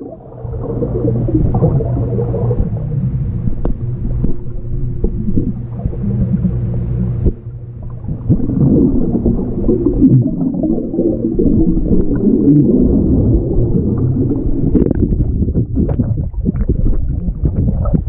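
Muffled water sound with gurgling and a steady low hum, as heard with the microphone under the water of a swimming pool.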